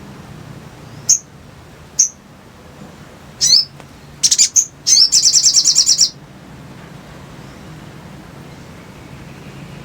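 Spiderhunter (sogok ontong) calling: sharp single chirps about a second apart, a longer slurred note, two quick chirps, then a rapid high chattering trill of about ten notes a second that stops suddenly a little past halfway.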